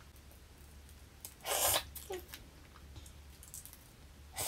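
Fresh lychee being peeled by hand: a short noisy tearing of the skin about a second and a half in, and a briefer one near the end, over a low steady hum.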